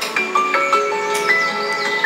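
Soft relaxation background music: single bell-like notes struck one after another, each left ringing.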